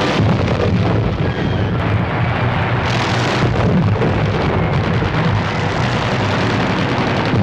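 A loud, continuous rumbling roar with a hiss over it that brightens briefly about three seconds in.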